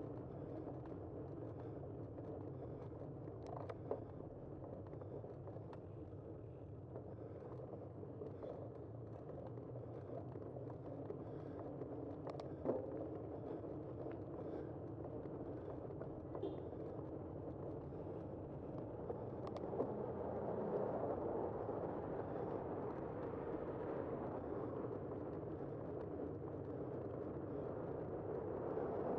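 Steady road and wind noise from riding a bicycle along a city street, with three brief knocks, getting somewhat louder about two-thirds of the way through.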